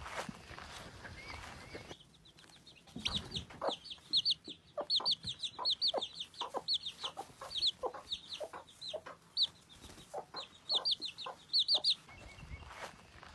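Chickens clucking: many short calls in quick, irregular succession for about ten seconds, starting about two seconds in and stopping near the end.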